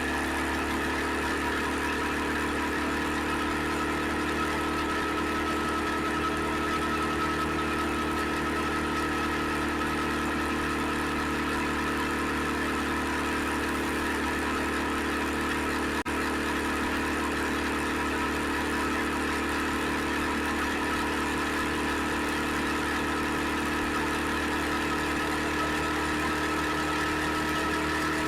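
The engine of an SVT650X motorcycle running steadily at an unchanging speed, with a single faint click about sixteen seconds in.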